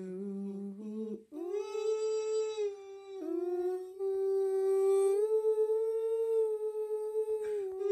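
A woman's voice singing a wordless melody in long held notes, the pitch stepping down and back up between them.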